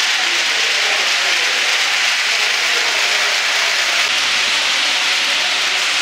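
A steady, even hiss with no distinct events: the background noise around a running HO-scale model railway layout.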